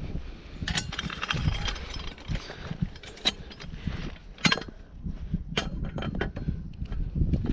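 Irregular sharp clicks, clinks and knocks, a quick cluster of them about a second in and a louder single knock a little past the middle, over a low rumble.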